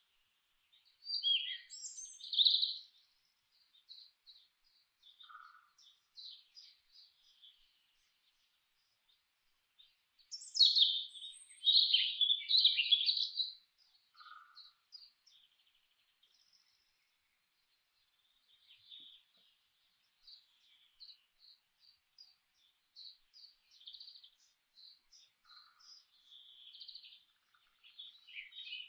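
Songbirds chirping and singing, with scattered single chirps and fuller bursts of song about a second in, around ten to thirteen seconds in, and again at the end. A lower, short call is heard a few times.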